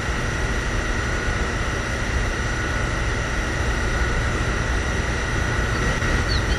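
Small DC-motor mini water pump running steadily, with a constant whine over a low rumble, pumping liquid out through a toy fuel nozzle.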